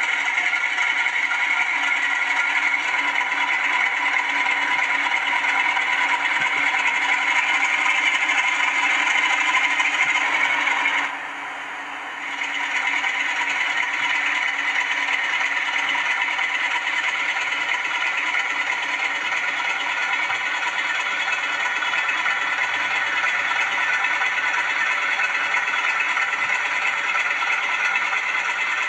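Zimo ZS47A sound decoder playing a Class 47 diesel engine sound through the model locomotive's small bass reflex speakers as it runs slowly. The engine note is steady and buzzy, with some mechanical rattle. About eleven seconds in, the sound drops away for about a second, then returns with a slightly different tone.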